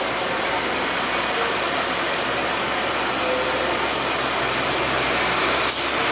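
Steady running noise of a heavy truck's engine and road noise, a dense even hiss with little clear engine note.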